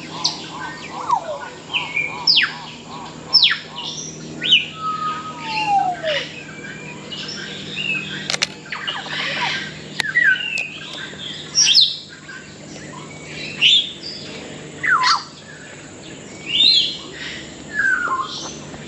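Many birds calling over one another: a dense mix of whistled notes and chirps, many of them sharp falling or rising glides, with a quick pulsing call in the first few seconds. A steady low hum runs underneath.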